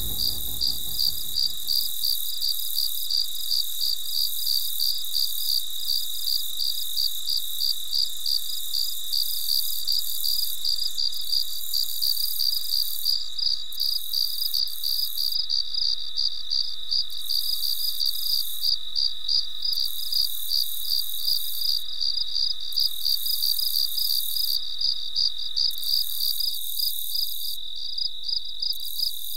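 Crickets chirping in a rapid, even, high-pitched pulse that keeps up steadily. Low background music dies away in the first two seconds.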